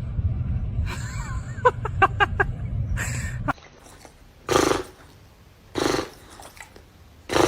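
A dog growling in a low continuous rumble that stops abruptly about three and a half seconds in, followed by short, sharp vocal sounds about every second and a half.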